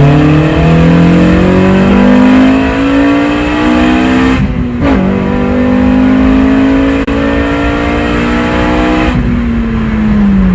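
Car engine accelerating hard, its pitch climbing through a gear, a quick upshift about four and a half seconds in, then pulling up again before easing off near the end. The engine is running with its cylinder-2 misfire cured by a replacement fuel injector.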